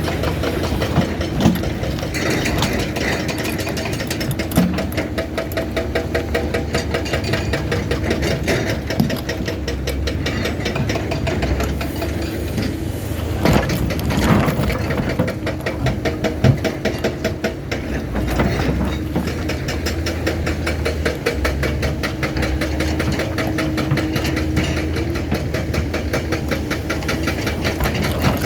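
Doosan 480 excavator's diesel engine running steadily, with a fast, even pulse and a few brief louder knocks now and then.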